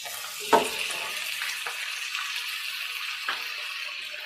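Chopped onion and garlic sizzling in hot olive oil in a nonstick pan, a steady high hiss, with a few knocks and scrapes of a silicone spatula, the loudest about half a second in.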